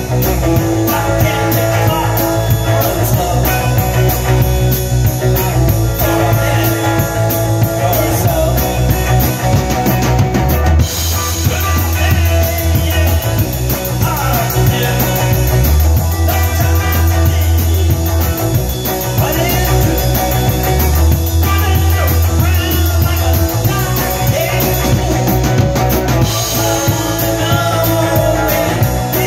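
Rock music with a drum kit played throughout: a steady beat of drums and crash and ride cymbals over changing bass notes and other pitched instruments. The cymbals drop out briefly about ten seconds in and again near the end.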